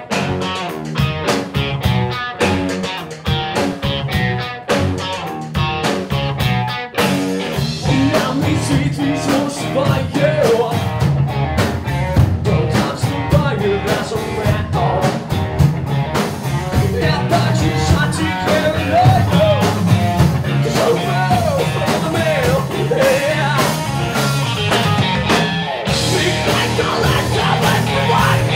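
Rock music by a band with drums, bass and electric guitar, growing fuller about seven seconds in with a melodic line over it.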